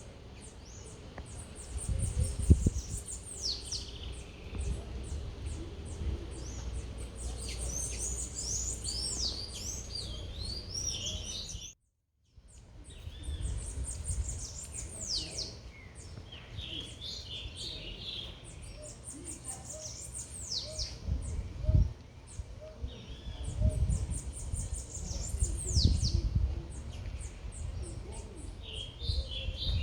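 Several small birds chirping and twittering in quick, high, falling notes over a low city rumble that swells louder a few times. The sound cuts out completely for about half a second near the middle.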